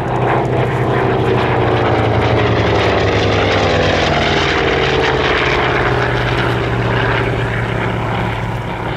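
Hawker Sea Fury's radial piston engine in a low, fast flypast: a loud, deep drone that swells and then drops steadily in pitch as the aircraft passes.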